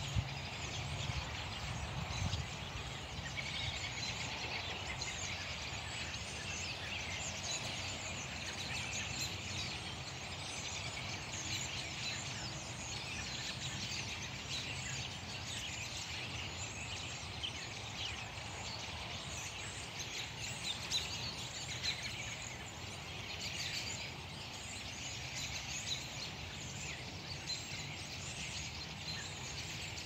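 A large flock of birds calling and chirping all at once, a dense, continuous chatter of many short high calls, over a low background rumble.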